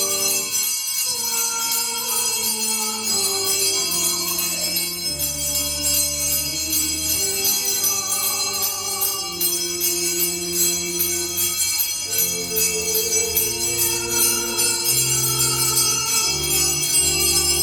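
Slow church music of long held chords over a bass line, the notes changing every second or two.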